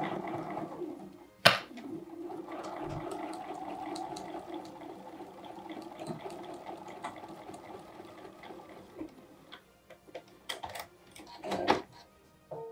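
Electric sewing machine stitching a seam, running steadily for about nine seconds and then stopping. A sharp click comes about one and a half seconds in, and a few short knocks follow near the end.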